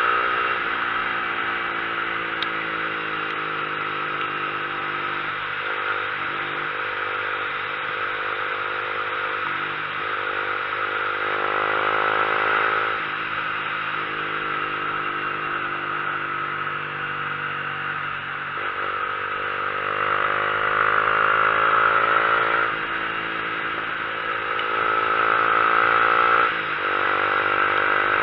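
Motorcycle engine under load climbing a hill road. Its pitch rises steadily in each gear and then drops off sharply at a gear change, several times, over a steady rushing noise.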